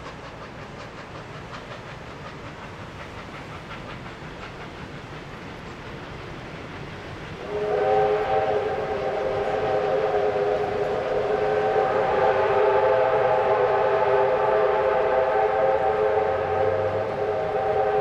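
R class Hudson steam locomotive running, then about seven and a half seconds in its steam whistle opens into a long, loud blast of several steady tones sounding together, held to the end with a brief dip near the end.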